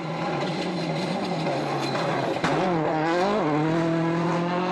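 Rally car engine running hard on a wet tarmac stage, its note steady at first. A sharp crack comes about halfway, the note dips and rises for about a second, then holds steady again.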